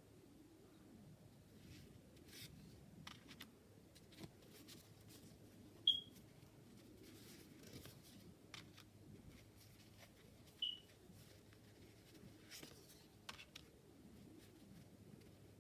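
Tarot cards being handled and flipped through: faint rustling of card stock and light taps. Two short, high-pitched chirps stand out, about six seconds in and again near eleven seconds.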